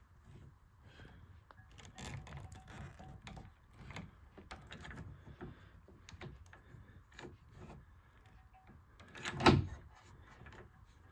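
Hand pop-rivet tool being worked, with several soft clicks as the handles are squeezed and the jaws grip the mandrel, then one sharp snap near the end as the mandrel breaks off and a rivet sets in the aluminum corner.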